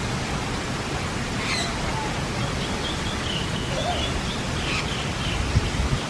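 Steady rushing background noise with faint, short, high bird chirps scattered through it, and a brief low thump near the end.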